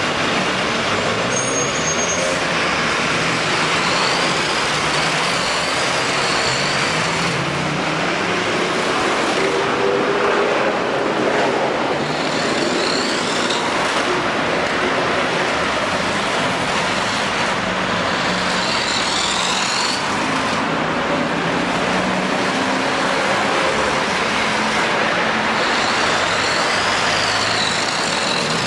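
Small electric motor of a 1:24-scale radio-controlled toy car, its high whine rising and falling in pitch every few seconds as it speeds up and slows down, over a steady rushing noise.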